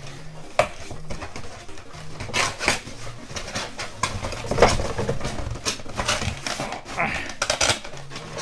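A cardboard box being handled and refolded: rustling and scraping of the cardboard with sharp taps and clicks, busiest in the middle.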